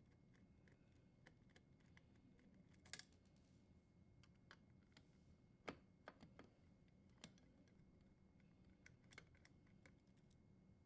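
Faint, scattered small clicks and taps of a Phillips screwdriver unthreading metal screws on a dishwasher's junction-box terminal block to free the power wires.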